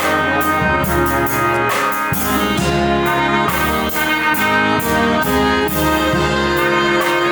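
Live brass band playing an upbeat tune: horns carrying the melody over a moving bass line, with a steady drum and cymbal beat.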